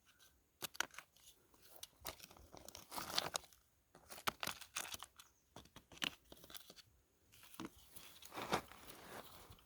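Rocks and gravel being shifted by hand in a dry creek bed: irregular clacks of stone on stone and short crunching scrapes.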